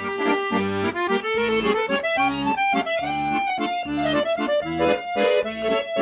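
Instrumental background music: a lively melody over bass notes that come in a regular pulse.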